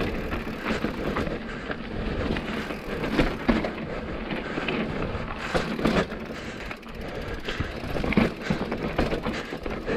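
Mountain bike ridden over rough rocky trail: tyres rolling over rock, the bike rattling and knocking over the bumps, with the freehub ratchet clicking while coasting.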